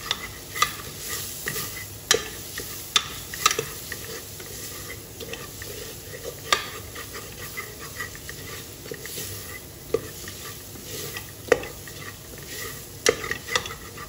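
Onion-tomato masala with chili, turmeric and coriander powder sizzling in oil in a pressure cooker while a spatula stirs it, with irregular scrapes and knocks of the spatula against the pot. The spices are being sautéed until their raw smell is gone.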